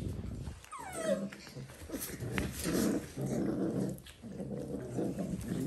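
Dalmatian puppies play-growling over a chew toy in rough low spells, with a short falling yelp about a second in.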